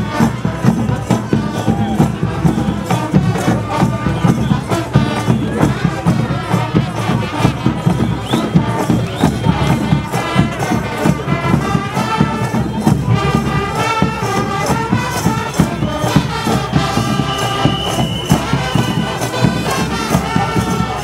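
Kaapse Klopse minstrel troupe street band playing: a steady drum beat with tambourine-like percussion under horns and voices.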